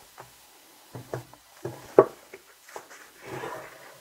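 Cardboard album packaging handled on a wooden desk: several light knocks and taps, the loudest about two seconds in, then a short rustling slide of card against card as the album is worked out of its sleeve.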